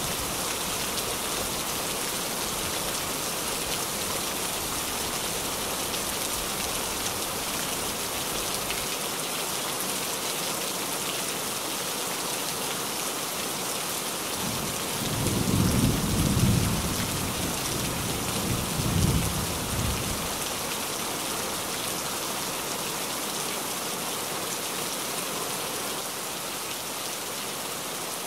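Steady rain drumming on a tin roof. About halfway through, a low rumble of thunder rolls in two swells over about five seconds.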